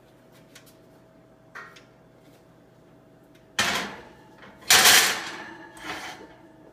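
Metal baking sheet set into an oven and pushed onto the wire rack: a sharp clank just past halfway, then a louder scraping clatter of pan on rack that dies away, and a smaller knock near the end.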